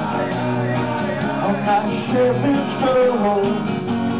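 Acoustic guitar strummed in a steady rock rhythm, played live, with a man's singing voice coming in at times.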